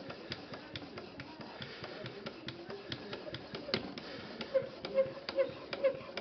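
Edge Pro Apex sharpening stone stroked back and forth along the edge of a ZDP-189 steel knife blade, grinding off metal: a run of light clicks, about two or three a second. From about four and a half seconds each stroke also gives a short squeak, about two a second.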